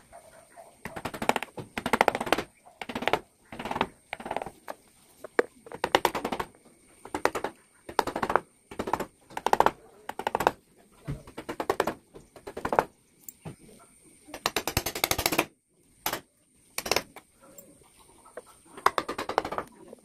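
Hand-pushed wood-carving chisels and gouges paring into wood, a crackling rasp in short strokes about once a second.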